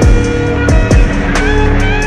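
Slowed-and-reverbed music track: sustained melodic tones over deep kick drums that drop in pitch and sharp high ticks.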